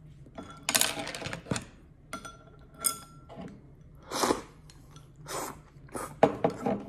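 A person eating hot pot from a ceramic bowl with chopsticks: several short slurps, with a few light clinks of the chopsticks against the bowl.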